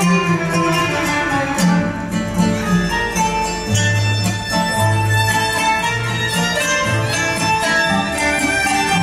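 Traditional Turkish ensemble music played live: a violin carries the melody over plucked oud and kanun accompaniment.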